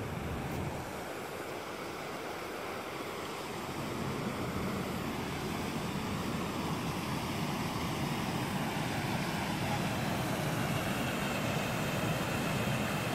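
Steady rush of running water, growing louder through the second half as a storm-swollen, muddy stream pouring over a small drop comes close, with wind on the microphone.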